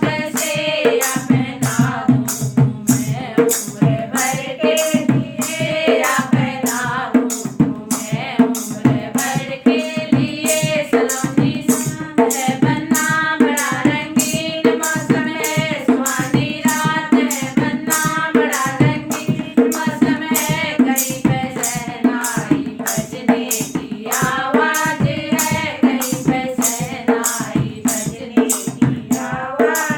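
A Hindi wedding folk song (banna-banni geet) sung with hand-drum and jingling percussion keeping a steady, fast beat.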